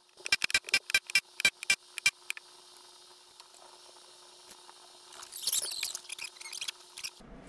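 Pneumatic rivet gun back-riveting aluminium stiffeners to a rudder skin: a quick run of about a dozen sharp hammering bursts in the first two seconds. Near the end comes a short crinkly rattle as the thin aluminium skin is handled.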